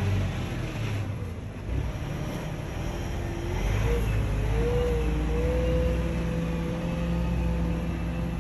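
Sherp ATV's diesel engine running under way, its pitch rising about halfway through and then holding steady.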